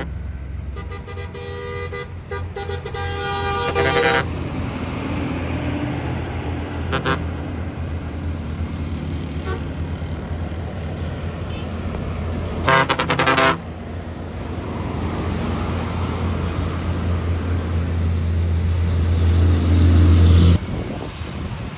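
Bus air horns sounding over a steady engine drone. First comes a run of horn notes that step in pitch for about three seconds, then a short toot, then a loud pulsing blast a little past halfway. The engine grows louder toward the end and then drops away suddenly.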